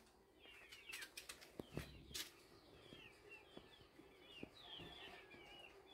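Near silence with faint, high bird chirps repeating through it and a few light clicks.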